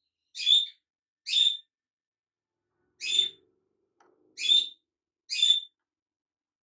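A bird chirping: the same short, bright chirp repeated five times, about a second apart with one longer pause in the middle.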